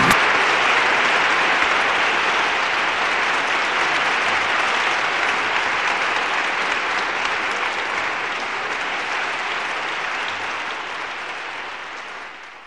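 Applause from a large crowd, an even clapping wash that slowly fades out, dying away faster near the end.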